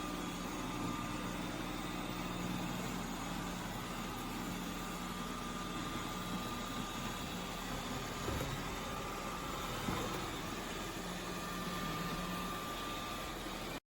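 Robot vacuum (Tapo RV30 Max Plus) running with a steady motor hum and whir, holding the same pitch throughout, with a couple of faint knocks near the middle.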